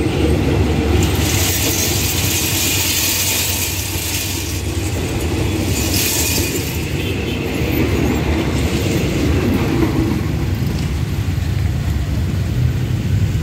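Express passenger train's coaches rolling past close by: a steady low rumble of wheels on the rails, with two surges of high hiss, about a second in and around six seconds.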